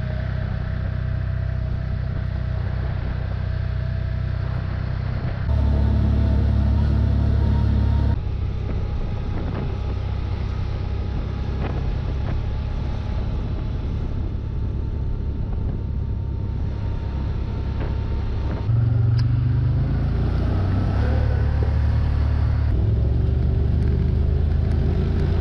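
Side-by-side off-road vehicle engine running steadily on the move, with a low drone and road noise. The sound shifts abruptly a few times, louder from about five to eight seconds in and again from about nineteen seconds on.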